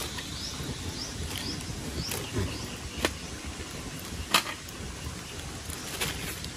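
Wood fire grilling fish, with scattered sharp crackles and pops over a steady hiss. A few brief high chirps sound in the background.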